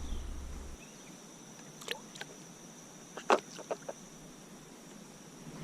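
A few light knocks and clicks, the loudest about three seconds in, over a faint steady high hum and a low rumble that stops within the first second.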